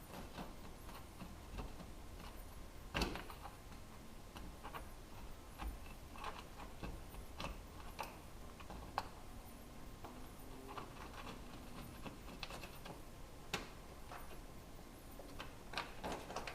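Irregular light clicks and knocks, with one louder knock about three seconds in.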